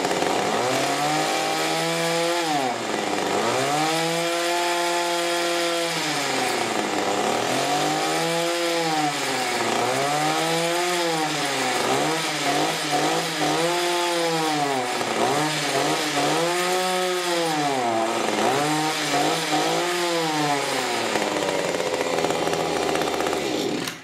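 Mantis tiller's small Kioritz two-stroke engine running on a fresh carburetor, revved up and down over and over, about once every two seconds, then cut off at the very end. The owner thinks it may need a little retuning, or that its spark arrestor may be plugged with carbon.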